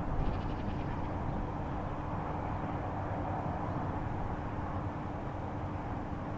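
A steady low rumbling drone with a constant hum running through it, unchanging throughout. The uploader takes it for a strange sound coming from the sky.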